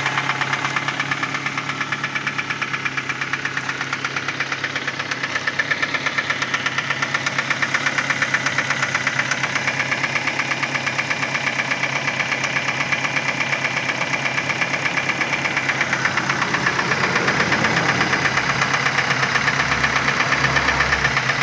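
2010 Ford Focus engine idling steadily with a fast, even rhythmic pulsing, the noise the owner treats as an engine sound problem.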